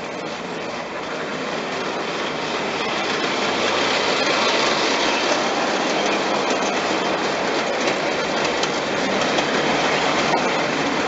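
A Märklin gauge 1 HR Pacific tinplate model locomotive and two metal coaches running on tinplate three-rail track: a steady rolling clatter of wheels on rail joints that grows louder over the first four seconds as the train comes near and passes, then holds.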